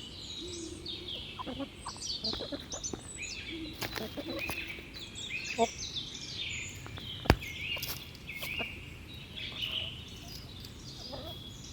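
Many small birds chirping and twittering over one another without a break, with a few short low clucks from chickens. A single sharp click sounds about seven seconds in.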